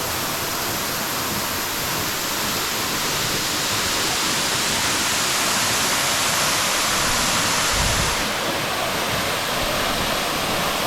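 Waterfall rushing steadily into a pool, a loud, even roar of falling water. A brief low thump about eight seconds in, after which the rush sounds slightly duller.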